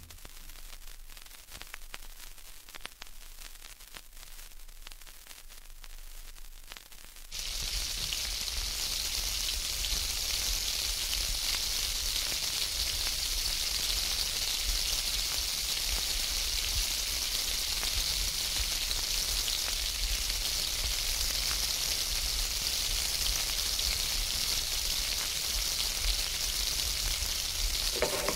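Faint crackle with scattered clicks, then, about seven seconds in, bacon frying in a pan starts suddenly: a steady, dense sizzle with spitting crackles.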